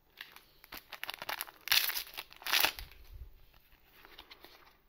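Foil trading-card booster pack being torn open and crinkled by hand: a crackling rustle, loudest in two rips about a second apart midway, then a softer rustle.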